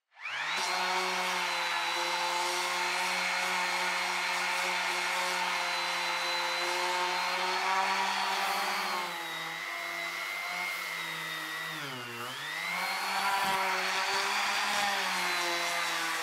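Corded electric drill running steadily while boring keel bolt holes up through the bottom of a plywood boat hull. Its whine sags briefly about twelve seconds in as the bit loads up, then picks back up to speed.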